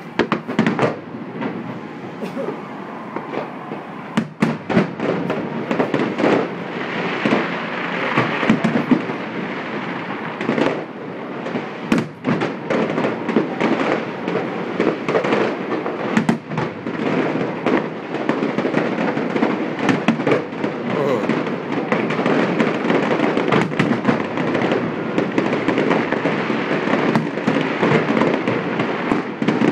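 Fireworks display: a dense, continuous barrage of bangs and crackles, many shells bursting in quick succession.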